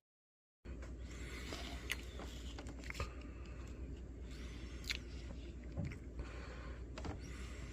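Faint room noise with a steady low hum, broken by a few scattered small clicks and rustles, after a brief moment of dead silence at the start.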